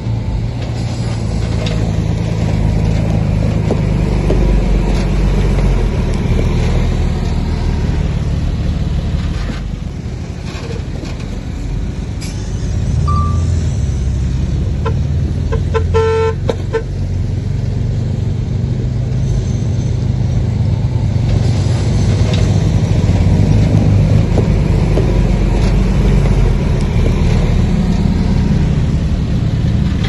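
Heavy diesel engine of a crawler bulldozer running under load, easing off for a few seconds about a third of the way in before picking up again. Just past the middle, a horn gives a quick series of short toots.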